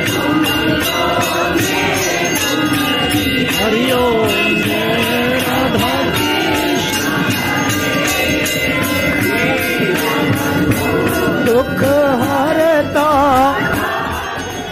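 Devotional song: a singer's voice with wavering, ornamented melody over a steady percussion beat.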